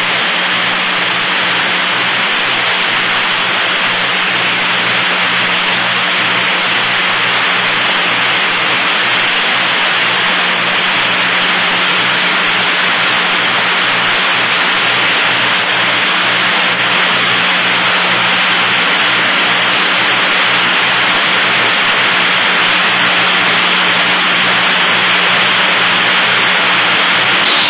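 Steady radio static hiss on an open air-to-ground communications loop, with a low steady hum and a faint low pulsing about three times a second underneath.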